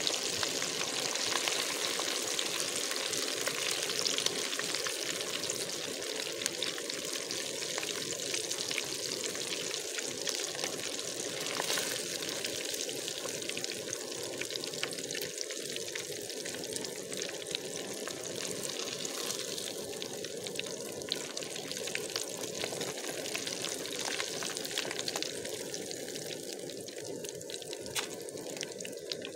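Battered fish pieces deep-frying in hot oil in a clay pot, with a steady sizzling and crackling of bubbling oil. The sizzle eases slightly toward the end.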